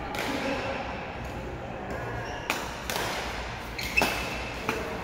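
Badminton rackets striking a shuttlecock in a rally: sharp hits, about four of them in the second half, the loudest about four seconds in.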